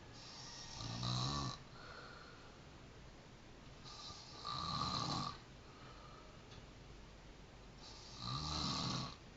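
A person snoring: three loud snores about four seconds apart, each lasting a second or so, with a low steady background between them.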